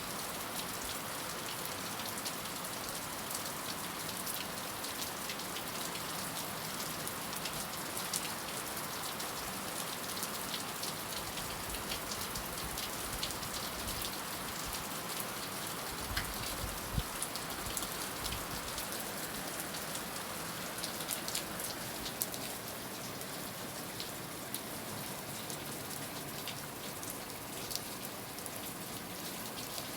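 Heavy rain falling steadily, the crisp ticks of individual drops hitting a surface scattered through the hiss. About seventeen seconds in there is a brief low thump.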